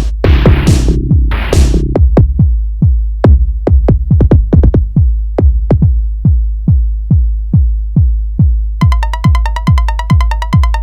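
Electronic dance music. Noisy drum-machine hits open it; then a steady, evenly spaced drum-machine kick plays over a deep bass pulse. Near the end a bright synth line of fast repeated notes comes in.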